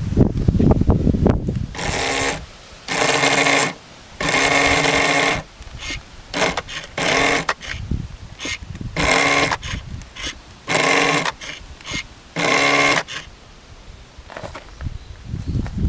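Toy RC tugboat's electric propeller motor, fed by a 7.2 V car battery pack, whirring in short bursts as it is switched on and off about seven times, each burst a steady whine lasting half a second to a second, with the propeller spinning in open air.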